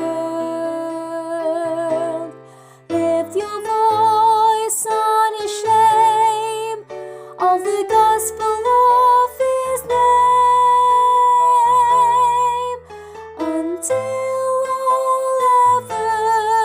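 Soprano voice singing long held notes with vibrato over instrumental accompaniment, one note held for about three seconds near the middle.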